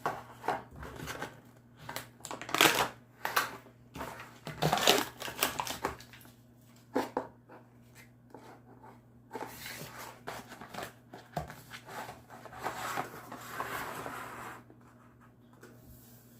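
A Pringles can being opened and handled: a run of sharp clicks and crinkles from the plastic lid and foil seal, then a longer stretch of crackling rustle from the foil and the chips.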